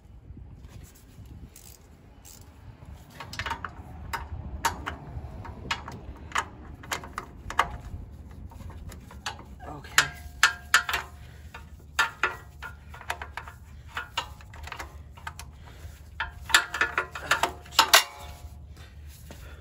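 Irregular metallic clicks and clinks of a wrench working at bolts on a small engine's recoil starter, some strikes ringing briefly. They start about three seconds in and are busiest near the end.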